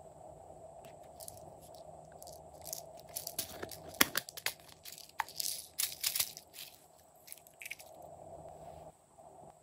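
Crackling and crunching of plastic as a small pumpkin-shaped plastic container is gripped and opened by hand. A burst of sharp crackles comes in the middle, loudest about four seconds in.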